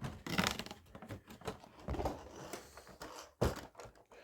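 Hands opening an advent calendar compartment and handling the small fidget toy inside: a brief rustle of packaging, then scattered light knocks and clicks, the sharpest about three and a half seconds in.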